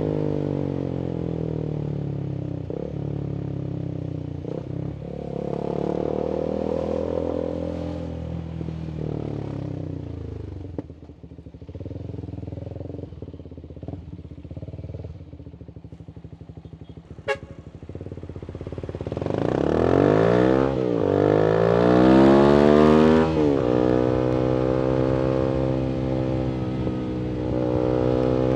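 Voge 300AC motorcycle's single-cylinder engine, reflashed for richer fuelling, running through an aftermarket full-system exhaust. It rolls off to a low, quieter run in the middle, with one sharp click. It then accelerates hard with a steeply rising pitch, briefly dipping once in a gear change, and settles into a steady cruise.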